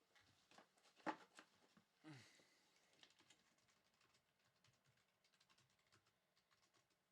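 Faint scattered clicks and taps of small objects being handled, with one sharper click about a second in and a short scrape just after two seconds; otherwise near silence.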